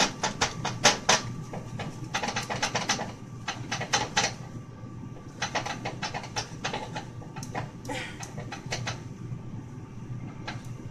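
Utensil clicking and tapping rapidly against a bowl as melted chocolate is whipped fast. The clicks come in short quick runs with brief pauses between them.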